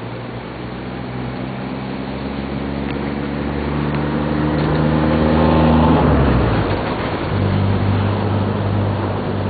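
A road vehicle's engine accelerating, its pitch and loudness rising steadily for about six seconds, then dropping abruptly and running on steadily at a lower pitch, as at a gear change.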